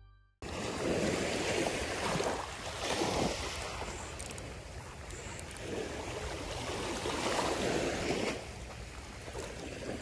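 Sea waves washing onto the shore, swelling and easing every couple of seconds, with some wind rumble on the microphone. They start about half a second in.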